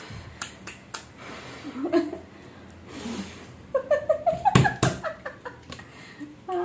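Slime being squeezed and pulled in the hands, giving sharp sticky clicks and pops, a few near the start and two louder ones just before the five-second mark. A short laugh-like voice comes in about four seconds in.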